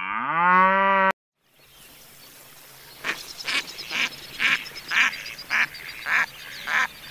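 A cow moos with a rising pitch and is cut off about a second in. Then a greylag goose honks in a run of short calls, about two a second.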